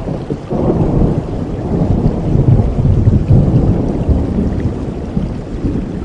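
Thunder rumbling through steady heavy rain: a long low roll that builds about half a second in, is loudest around the middle, then slowly fades.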